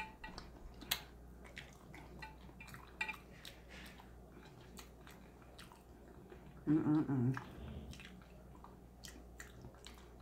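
A person chewing a sauce-soaked boiled potato close to the microphone: faint wet chewing with many small mouth clicks. About seven seconds in there is a short, louder hummed "mm".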